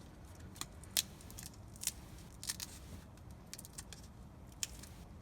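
A cutting tool snipping and clicking irregularly at the soldered tabs that join the cells of a LiPo battery pack, the loudest snip about a second in.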